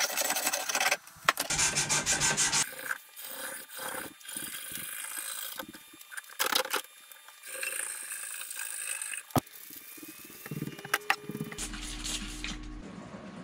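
Hand tools scraping and rasping on an ash canoe paddle being shaped: quick repeated strokes for the first couple of seconds, then sparser ones, with a few sharp clicks near the end.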